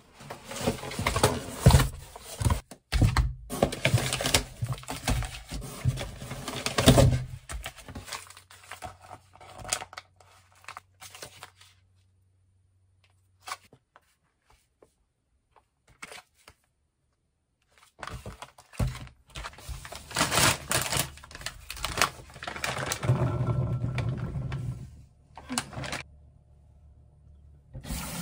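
Plastic food packets crinkling and rustling as they are handled and set down on a stone countertop, with scattered knocks. The handling goes quiet for a few seconds in the middle and starts up again.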